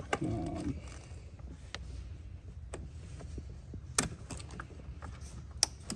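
Scattered sharp clicks and light rattling from plastic wiring-harness connectors and wires being handled and unplugged, the loudest click about four seconds in.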